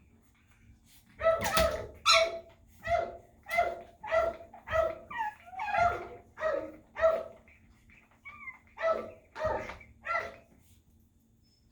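Dog barking repeatedly: about a dozen short, sharp barks at roughly one every half second, with a brief break near the end.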